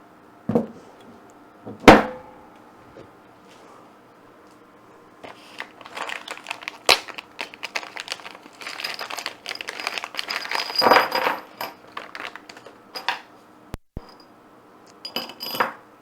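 Small metal parts, the vise's air fittings and hardware, being handled: a sharp knock about two seconds in, then a long stretch of clinking and crinkling packaging, loudest about eleven seconds in, and a short burst of it near the end.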